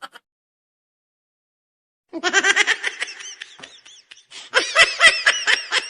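Silence for about two seconds, then a laughing sound effect: rapid, high-pitched bursts of laughter, which grow louder about four and a half seconds in.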